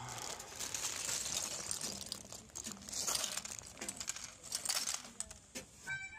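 A clear plastic bag crinkling and rustling as it is handled, with small plastic Lego bricks clicking and rattling inside it. Harmonica music starts right at the end.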